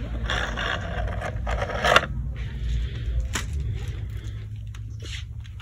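Rustling and scraping of packaged nail files and buffers being handled on a store shelf, with two sharp clicks, the first about two seconds in and the second a second and a half later, over a steady low rumble.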